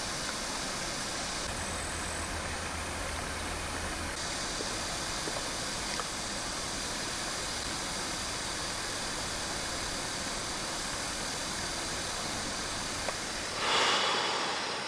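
Steady rush of a small stream's flowing water, the only sound at the bank; it swells briefly louder near the end.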